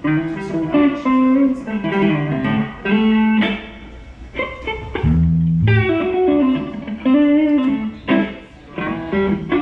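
Electric guitar played through an amp in short phrases of plucked single notes, as in a sound check. A deep low note sounds briefly about five seconds in.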